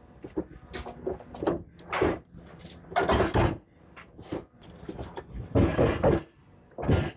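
Demolition machine crunching away as it knocks down part of a building: irregular crunches and clatter of breaking debris, loudest about three seconds in and again around six seconds.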